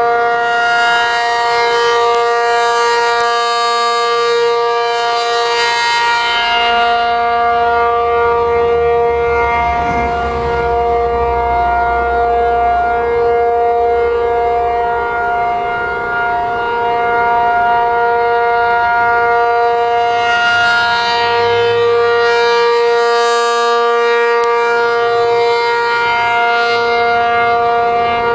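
Outdoor tornado warning siren sounding a steady two-note alert tone during a siren test, with no rise or fall in pitch. Its brighter overtones swell and fade twice.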